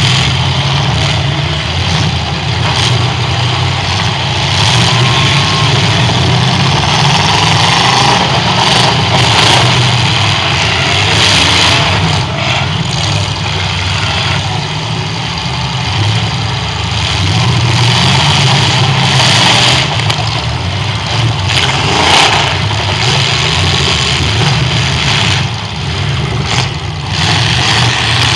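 Demolition derby cars' V8 engines running and revving, with metal-on-metal crashes as the cars ram one another several times.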